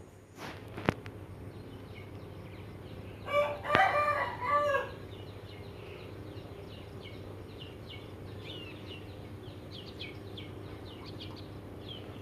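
A rooster crowing once, a multi-note call about three seconds in, with small birds chirping faintly afterwards.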